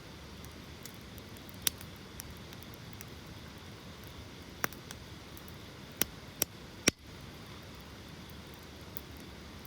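Wood campfire burning: a steady low hiss with scattered sharp crackles and pops, a few loud ones clustered in the second half, the loudest near the end.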